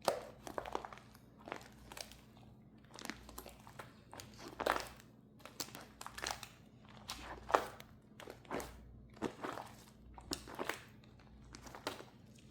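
Slime being squeezed and poked by hand, giving a run of short, irregular crackling and squishing sounds about once or twice a second.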